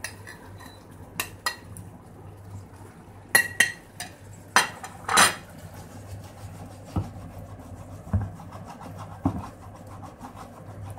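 A metal fork scraping and clinking against a ceramic plate, several sharp clinks in the first half, as chunks of raw tuna are pushed off into a pan of tomato sauce; then a wooden spoon stirring and knocking a few times in the frying pan.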